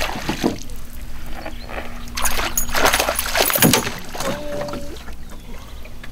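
A hooked fish thrashing at the surface, making several splashes.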